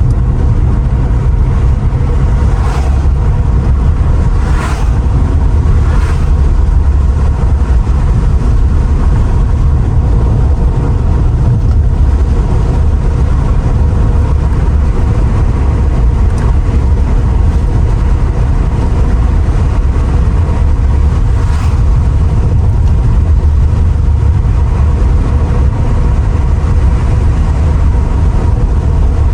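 Steady low rumble of a Mercedes R129 SL500 cruising at an even speed, heard from inside the car, with a few faint clicks.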